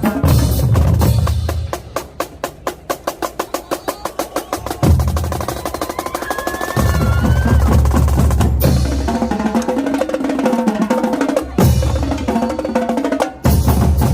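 Marching band drumline playing a cadence with bass drums and snares. About two seconds in the low drums drop out, leaving about three seconds of rapid, even stick strokes before the full line comes back in.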